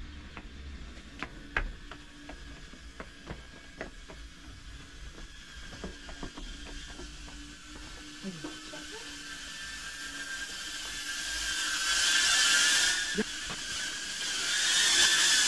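Small FPV quadcopter's brushless motors and propellers (GEPRC Cinelog25 with GR1404 4500kv motors) whining, low at first with scattered faint clicks, then swelling to a louder whine with wavering pitch in the last few seconds.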